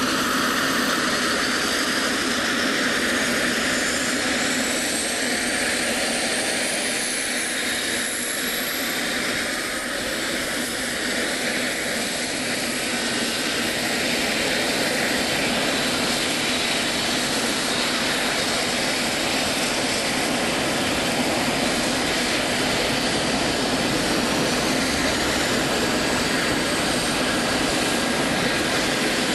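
Eurocopter EC135 helicopter running on the ground with its turbines and rotors turning: a steady, loud engine and rotor noise. A high turbine whine rises in pitch during the first few seconds and again near the end.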